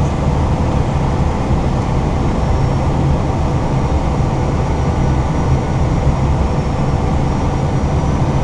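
Steady cockpit noise of an Airbus A320 on final approach: a low rumble and rush of airflow and engines, with a faint high-pitched tone above it.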